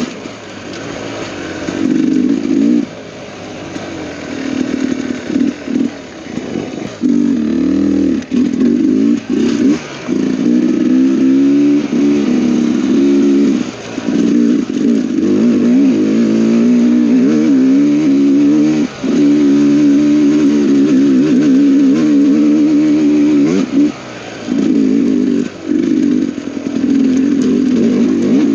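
Dirt bike engine running under throttle on a trail ride, its revs rising and falling, with short drops every few seconds where the throttle is chopped and picked up again.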